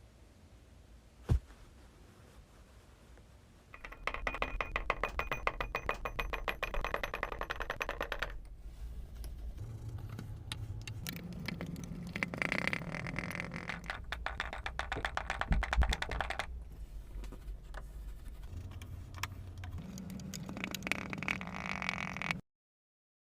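Slime being squished and worked by hand: dense, rapid sticky crackling and clicking in stretches of a few seconds, stopping abruptly near the end.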